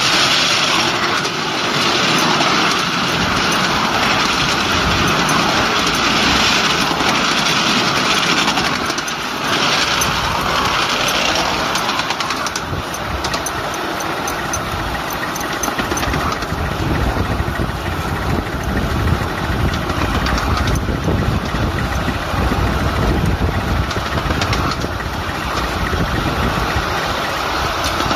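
A 5-inch gauge live steam locomotive running along the track, heard from just behind its cab: a steady, loud hiss and rush, with rapid clicking coming in about halfway through.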